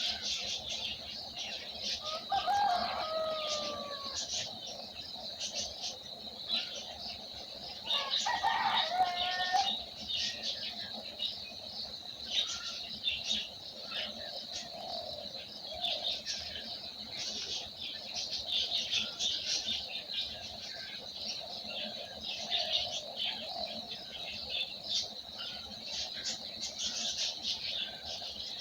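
Many small birds chirping continuously, with two louder, longer calls that fall in pitch, one about two seconds in and one about eight seconds in.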